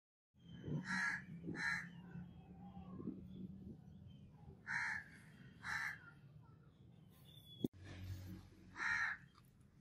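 A bird calling in the background: five short calls, in two pairs and then a single one, over a low steady hum. A sharp click comes about three-quarters of the way through.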